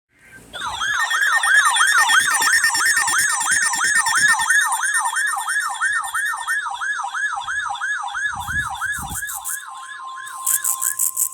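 Electronic siren in a fast yelp, its pitch sweeping up and down about three times a second and slowing slightly over time. A steady single tone joins in near the end, along with a few bursts of very high-pitched buzzing.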